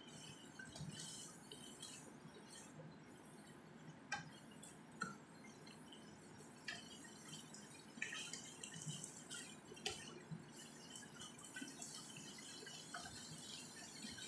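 Shredded chicken frying faintly in a little oil in a nonstick pan, with a soft crackling sizzle, while a plastic spatula stirs and scrapes it, giving a few light clicks against the pan.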